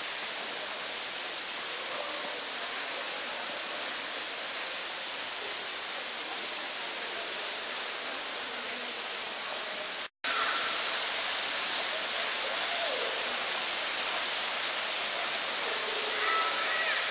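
Steady rushing and splashing of a small waterfall falling into a pond, with faint distant voices. The sound drops out for a moment about ten seconds in, then resumes slightly louder.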